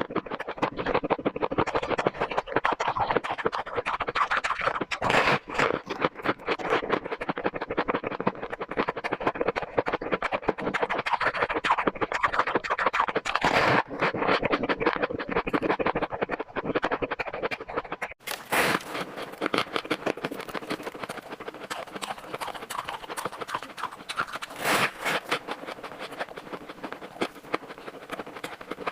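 Close-up chewing of shaved ice: continuous, dense crunching made of rapid crackles. It breaks off for a moment about two-thirds of the way through and resumes brighter and crisper.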